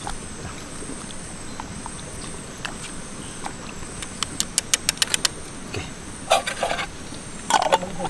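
Night insects, crickets among them, buzzing steadily and high. A quick run of sharp clicks comes about halfway through, with a few more clicks near the end.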